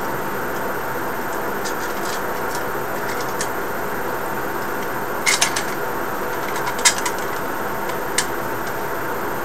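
Sharp plastic clicks and taps from handling a cooling fan and its wiring while fitting it into a Bitcoin miner: a short cluster a little past the middle, another about a second later and a single click near the end. Under them runs a steady machine whir with a faint hum.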